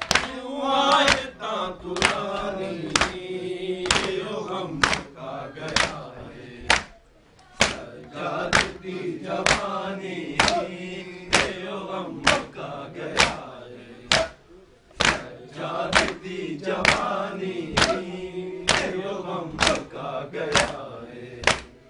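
A group of men chants a Punjabi/Urdu noha refrain in unison. Under the singing, sharp, steady slaps of hands striking chests (matam) fall about three every two seconds, keeping the beat of the lament.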